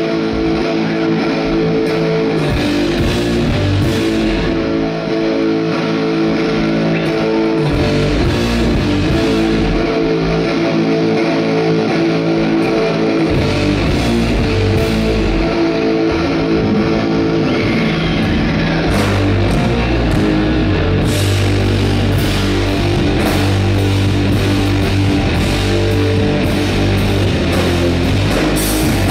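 Live rock band playing an instrumental passage: electric guitars over bass guitar and drums. The drums and bass get heavier about two-thirds of the way through.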